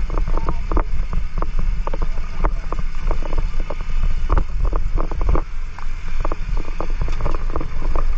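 Motorcycles riding over a rough gravel road: a steady low engine-and-wind rumble on the microphone, broken by many short, irregular knocks and rattles from the bumps.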